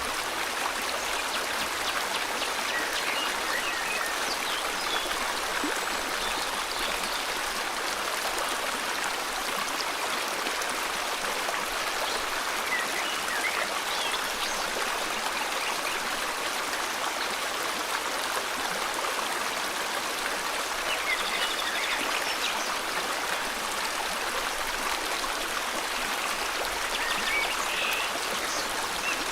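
River water flowing steadily, with a few faint, short bird chirps scattered over it.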